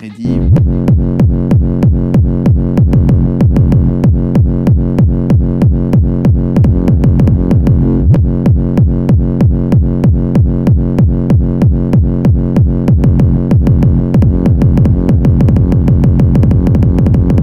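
Electronic dance track. A fast, pounding kick drum comes in abruptly right at the start and beats about three times a second over a sustained synth bass.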